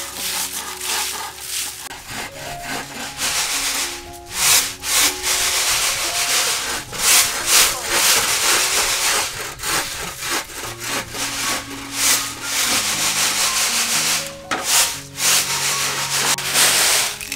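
Dried bean pods and small red beans rustling and rattling in a woven bamboo winnowing tray as they are rubbed by hand and tossed, in repeated swishing surges. Soft background music plays underneath.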